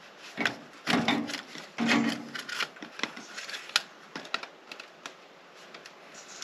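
Flexible black corrugated plastic drainage pipe being pushed and bent into place by hand: three loud scraping rustles in the first couple of seconds, then a run of sharp clicks.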